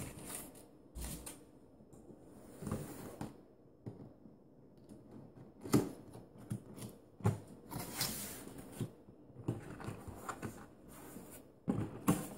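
Cardboard boxes being handled: a boxed spin mop lifted out of its shipping carton and its lid flap worked open, with scattered scrapes, taps and knocks of cardboard.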